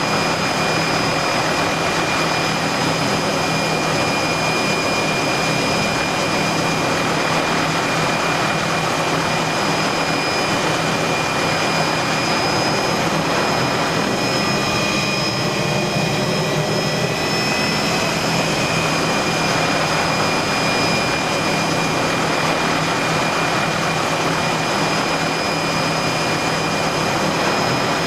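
Helicopter engine and rotor running steadily in flight, heard from inside a cabin with its doors off: a dense, unbroken rush of rotor and wind noise with a steady high-pitched whine over it.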